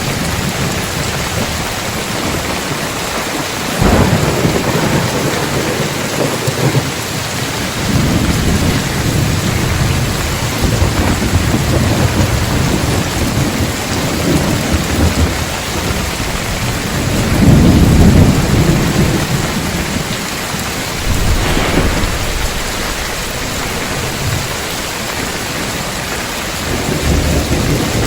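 Heavy rain falling steadily on roof tiles, with thunder over it. A sharp crack comes about four seconds in, then rolling rumbles, the loudest a little past the middle, and another crack soon after.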